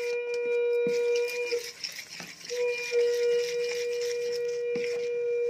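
A steady horn-like tone, held for about a second and a half, broken for about a second, then held again for about three seconds. Beneath it, light clicks of a metal spoon stirring batter in a steel bowl.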